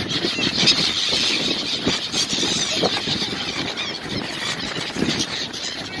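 A large flock of gulls calling, many high calls overlapping without a break, over a low rumble.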